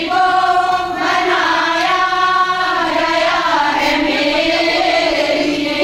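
A group of women singing a song together, holding long notes and gliding between them.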